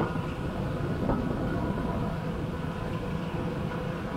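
Evinrude G2 two-stroke outboard motor running steadily as the boat moves along, mixed with the rush of water past the hull.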